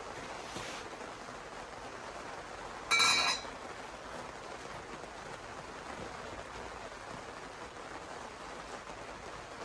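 A single short metallic clink that rings for about half a second, about three seconds in, over a steady low hiss.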